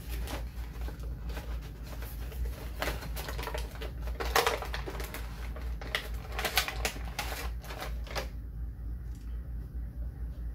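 Cardboard action-figure box being ripped open and its plastic packaging crinkled: a rapid run of tearing and crackling, loudest about four and again about six and a half seconds in, dying down about eight seconds in.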